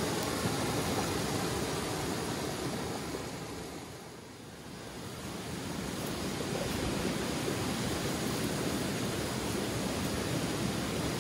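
Steady rushing water, an even hiss with no distinct events. It fades down briefly about four seconds in and comes back up.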